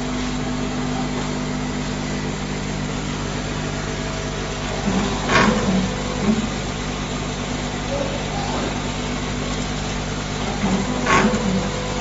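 Automatic nylon cable tie tying machine running with a steady hum. Twice, about six seconds apart, its tying head cycles with a sharp clack and brief mechanical noise as it fastens a tie around the cable.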